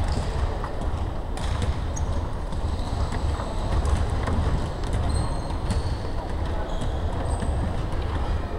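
Basketball court ambience in a large hall: a steady low rumble, with a few short high squeaks of sneakers on the wooden floor and a single sharp tick about a second and a half in.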